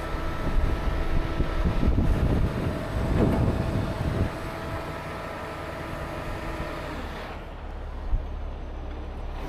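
The diesel engine of a 75-ton rotator tow truck running steadily, with a thin steady whine over the low hum. It is louder and rougher for the first four seconds, then settles. There is a single knock about eight seconds in.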